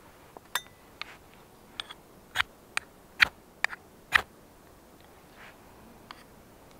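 Knife work with small metal camp gear: a run of about ten sharp clicks and light clinks over the first four seconds, one ringing faintly like metal, then a single faint click near the end.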